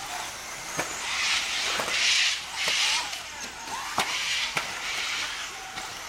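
1/10 electric off-road RC buggies racing on a dirt track: a hissing rush of motors and spinning tyres that swells as the cars accelerate, with several sharp clicks and a few brief rising and falling whines.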